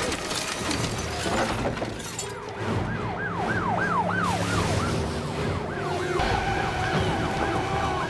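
Police car siren yelping in fast rising-and-falling sweeps, about three a second, then settling into a steadier tone for the last two seconds. A few thumps come in the first two seconds.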